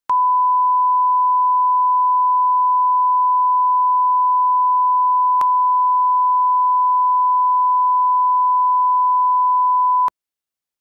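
Broadcast line-up reference tone played with colour bars: one steady pure tone at the standard 1 kHz, held for about ten seconds and cut off abruptly, with a faint click about halfway through. It is the level-calibration tone at the head of a programme tape.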